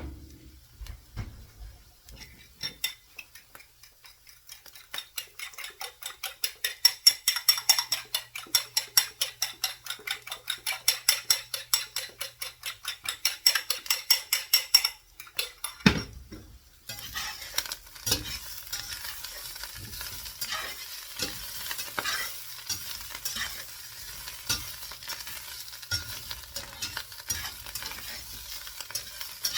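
A utensil stirring rhythmically, about three strokes a second, for some twelve seconds. Then a loud knock, and food sizzling steadily in a hot frying pan with occasional scrapes.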